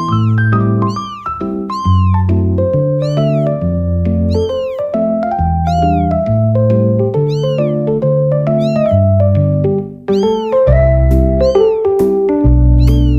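A music track built on a sampled cat meow: the same high, arching meow repeats on the beat about every two-thirds of a second over a bass line and chords. Drum hits join about ten seconds in.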